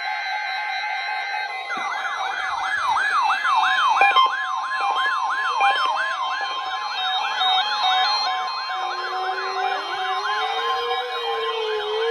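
Weather radio receivers alarming during a NOAA Weather Radio Required Weekly Test. Steady and beeping alert tones sound first. About two seconds in, a siren-style alarm starts wailing up and down about three times a second over a steady warning tone.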